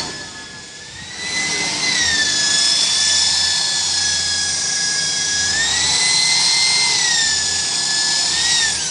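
A hand-held power tool running with a steady whine over a hiss. Its pitch rises and falls twice as the speed changes, then it winds down as it is switched off near the end.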